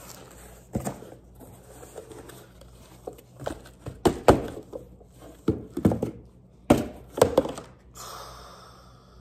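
Empty cardboard box being handled and set down on a hardwood floor: a series of dull thuds and taps, followed by a brief scraping rustle near the end.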